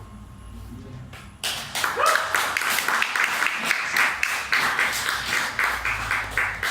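Audience applauding, starting suddenly about a second and a half in as a dense run of hand claps.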